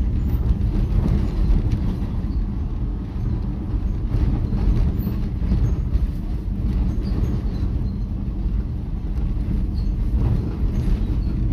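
Steady low rumble of a vehicle driving along a rough village road: engine and road noise.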